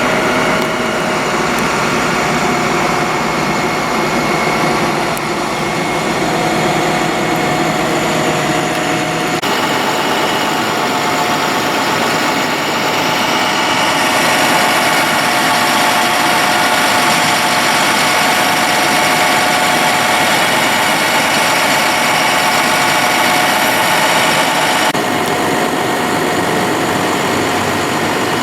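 Powered cleanup equipment running steadily at a loud level, with the mix of engine tones changing abruptly twice.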